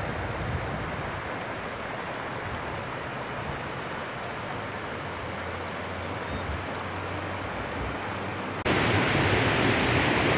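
Steady rushing of river water over shallow rocky rapids. Near the end it switches suddenly to a louder, brighter rush of water.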